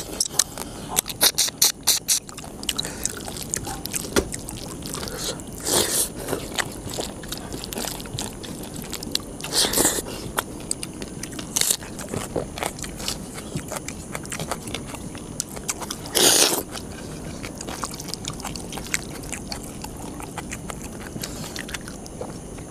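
Two people eating crab curry and rice with their hands: chewing and biting, with fingers scraping steel plates. Many small clicks, and a few louder short bursts spread through it.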